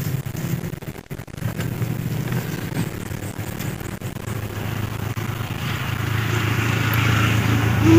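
A motorcycle engine running steadily, growing louder over the last few seconds.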